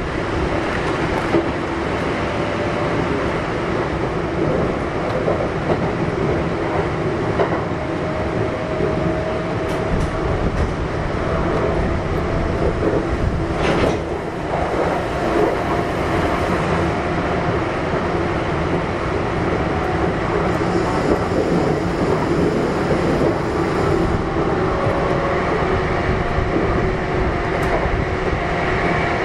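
Kintetsu 1233 series electric train running at speed, heard from inside the car: a steady rumble of wheels on rail under the thin whine of its Hitachi GTO-VVVF inverter and traction motors, which climbs slowly in pitch. There is a single sharp knock about halfway through.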